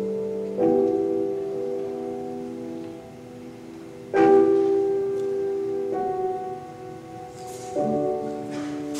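Slow piano music: sustained chords, a new one struck about every three and a half seconds, three in all.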